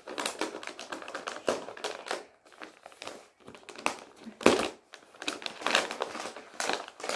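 Packaging crinkling and crackling in irregular bursts as a package is handled and opened by hand, with a louder crackle about four and a half seconds in.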